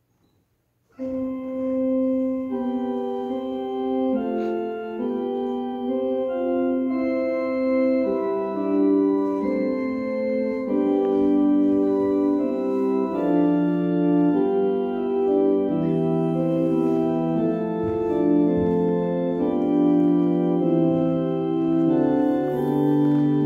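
Church organ playing slow, sustained chords that change in steps, starting about a second in.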